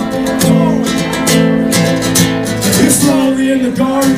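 Acoustic guitar strummed live, steady chords played as the intro before the singing comes in.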